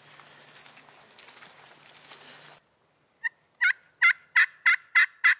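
Outdoor background with a faint low hum that cuts off abruptly about halfway through, then a run of turkey yelps: about seven evenly spaced, pitched notes, roughly three a second.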